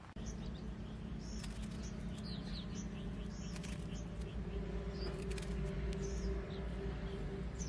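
Small birds chirping in short, high, repeated calls over a steady low rumble, with a few faint clicks.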